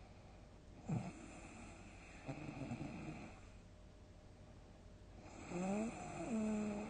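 A sleeping person snoring loudly: a short sharp snort about a second in, a rattling snore a little after, then a longer snore with a rising whistly pitch that drops to a lower held note near the end.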